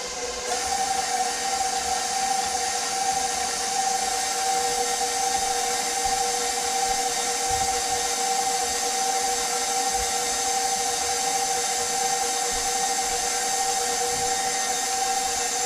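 Electric mixer running steadily, beating shortening and peanut butter together; its motor whine steps up in pitch about half a second in as the speed is raised, then holds steady.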